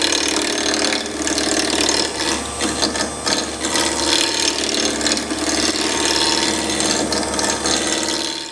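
Roughing gouge cutting a wood blank spinning on a lathe between centers. It makes a steady, rapid rattling chatter as the tool takes the stock from rough toward round.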